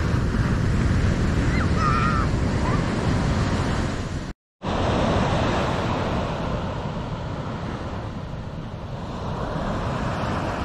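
Ocean surf washing onto a sandy beach, with wind buffeting the microphone. The sound drops out completely for a moment a little before halfway through, then the surf rises and swells again toward the end.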